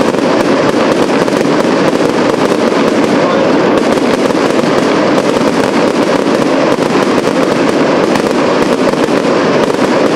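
Aerial fireworks display going off in a dense, continuous barrage of rapid crackling and popping bursts, with no pause.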